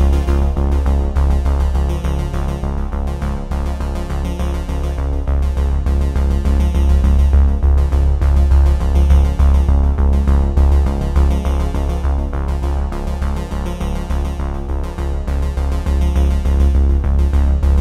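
Electronic background music with synthesizer and a steady beat.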